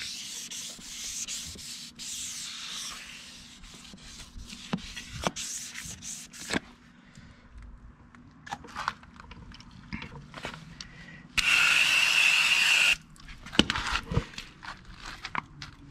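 Wet sanding of a boat hull's gel coat by hand with 400-grit sandpaper on a sanding block: rasping back-and-forth strokes for the first six seconds or so. About eleven seconds in, a garden hose sprays for about a second and a half, a loud steady hiss with a whistle in it that cuts off suddenly.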